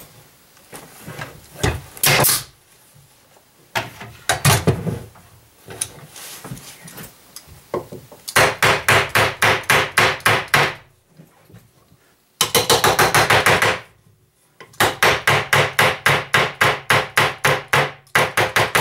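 Hammer striking a particleboard shelf in fast runs of taps, about six blows a second, three runs with short pauses between them; a few single knocks come before the first run.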